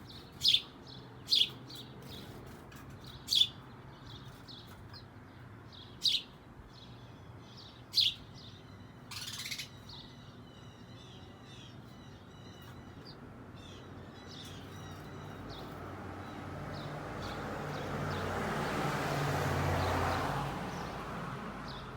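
Small birds chirping, short sharp high calls repeated, with five loud chirps in the first eight seconds and fainter ones throughout. Near the end a broad rushing noise swells up and fades away.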